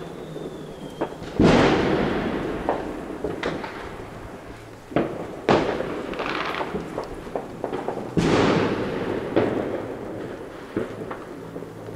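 New Year's Eve fireworks and firecrackers going off around the neighbourhood: a dozen or so bangs of varying loudness, each trailing off in a long echo, the loudest about a second and a half in. A thin whistle, like a rocket's, stops about a second in, just before that first big bang.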